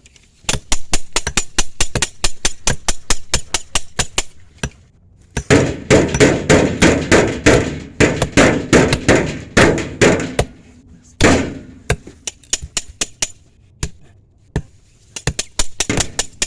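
Hammering: quick runs of sharp hammer blows, several strikes a second, broken by short pauses, with the heaviest and densest run in the middle.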